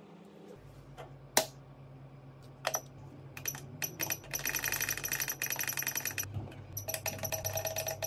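Rapid, even clicking from a small mechanism, in two runs of about two seconds each, over a low steady hum. A few single sharp clicks come before the runs.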